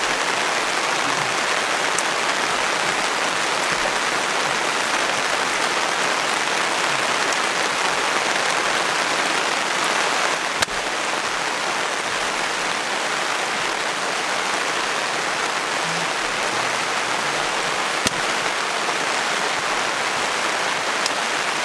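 Steady heavy rain falling on the forest and campfire, an even hiss with a few sharp clicks.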